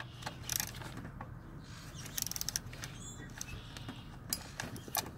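Hand socket ratchet clicking in a short quick run about two seconds in, among scattered light clicks and clinks of tools on metal engine parts.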